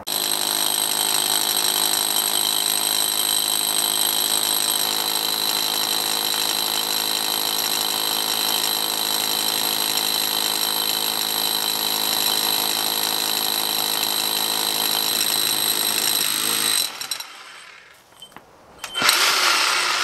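Corded rotary hammer with a core bit boring into a brick wall, running steadily under load. It stops about three seconds before the end, then runs again in a short burst.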